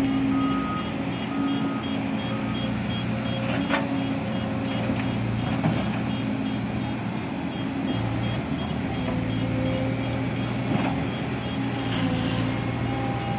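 Diesel engine of heavy road-construction machinery running steadily, with a reversing alarm beeping in an even rhythm, and a few brief knocks.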